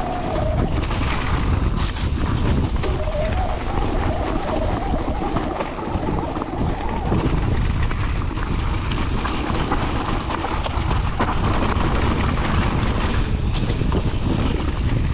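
Mountain bike riding fast down a gravel trail: wind buffeting the microphone over the rumble of tyres on loose gravel, with the bike rattling over bumps.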